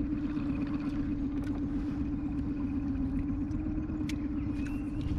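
A boat's motor running with a steady hum that cuts out at the very end. A few light clicks come near the end.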